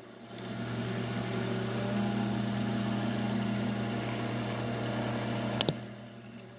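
Electric copper wire stripping machine's motor starting up and running steadily as a test piece of wire is fed through to set the blade depth. A couple of sharp clicks come near the end, after which the motor winds down.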